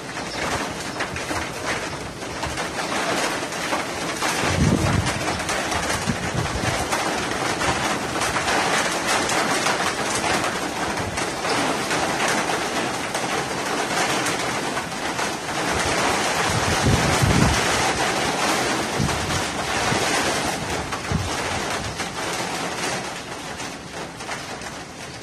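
Storm wind gusting hard: a steady rushing noise, with low buffeting of the wind on the microphone about 5 seconds in and again about 17 seconds in.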